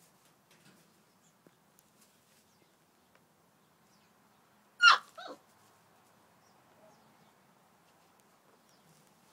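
A Maremma sheepdog puppy gives two quick yelps about five seconds in, the first loud and the second shorter and falling in pitch. Faint ticks and rustles sound before and after.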